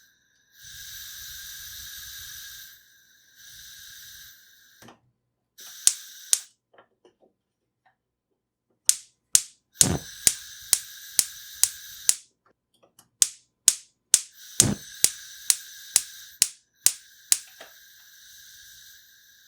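Kitchen gas stove being turned on and off: runs of sharp igniter clicks, about two a second through the middle, between stretches of steady hissing from the burner.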